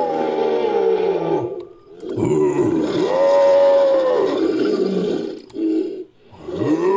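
Made-up creature sound effect of roars: a long roar that falls away about a second and a half in, a second long roar that rises and then falls, a short call, and a new roar starting near the end.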